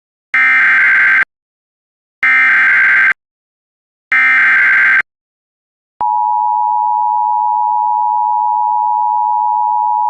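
Emergency Alert System opening: three bursts of digital SAME header data, each just under a second long with about a second between them, then the steady two-tone EAS attention signal starting about six seconds in.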